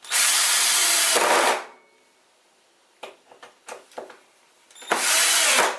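Power drill driving wood screws into a wooden frame in two bursts, the first about a second and a half long and the second under a second, with the screws sunk until their heads sit just below the surface.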